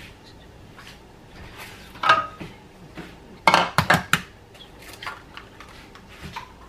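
Kitchen clatter: a few sharp clinks and knocks of dishes or utensils being handled. One rings briefly about two seconds in, and a quick cluster of about four knocks comes about three and a half seconds in.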